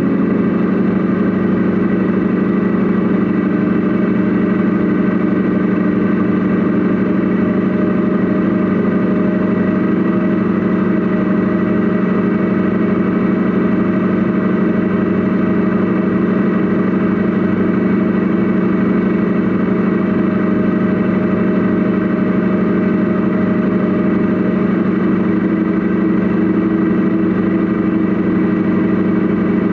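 Mercedes Actros SLT RC model truck heard from inside its own cab: a loud, steady engine-like hum that holds one pitch throughout.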